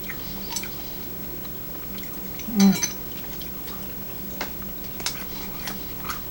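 Cutlery clicking and clinking lightly against bowls and plates during a meal, in scattered single taps, with one short louder sound about two and a half seconds in.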